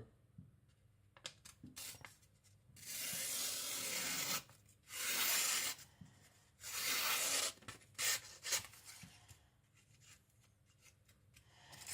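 Kiridashi blade drawn in three long scraping strokes, each about a second, with light clicks and handling between them.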